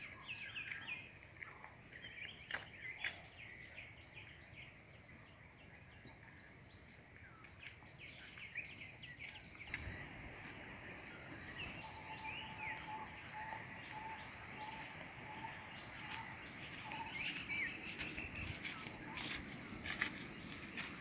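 Steady high-pitched insect drone with scattered bird chirps. About twelve seconds in, a bird gives a run of short repeated notes for a few seconds.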